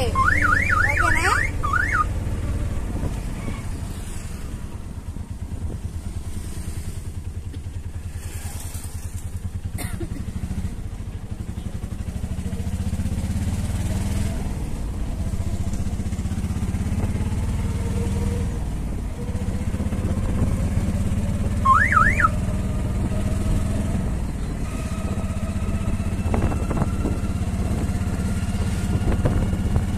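Auto-rickshaw engine running as it drives, its pitch climbing as it picks up speed, twice. A short, fast warbling chirp sounds at the start and again about two-thirds of the way through.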